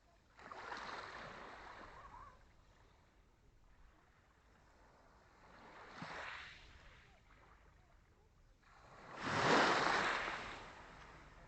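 Small sea waves breaking on the shore, three times a few seconds apart, each swelling up and washing out, the last one the loudest.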